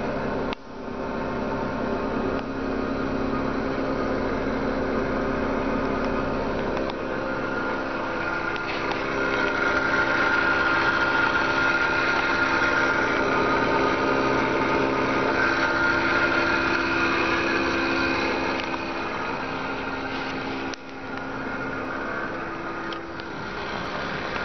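2006 Subaru Sambar van's small four-cylinder engine idling steadily, a little louder for several seconds in the middle.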